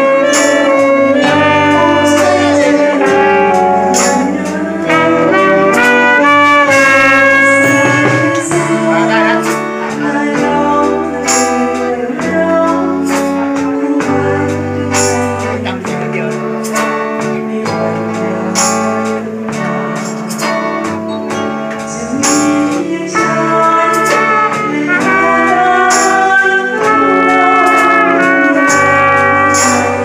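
Band music with a steady drum beat and a bass line; a saxophone plays the melody at the start, then drops out while the rest of the band keeps playing.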